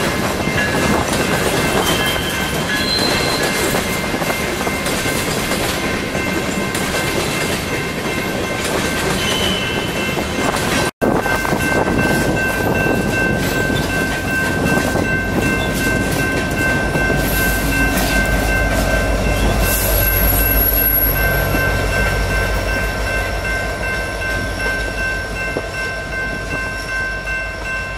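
Long BNSF coal train of hopper cars rolling past, a steady heavy rumble of wheels on rail with thin steady high tones over it and a brief break about eleven seconds in. Past the middle, a group of BNSF diesel locomotives goes by close, adding a deep pulsing engine rumble that fades toward the end.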